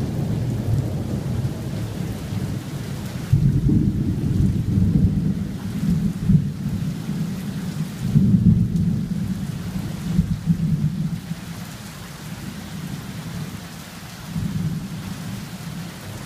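Rolling thunder rumbling low in long waves. It swells about three seconds in and again around eight seconds, dies down after about eleven seconds and rises briefly once more near the end, over a steady hiss of rain.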